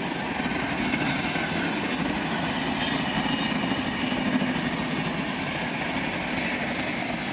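Steady vehicle rumble with a few faint held tones over it.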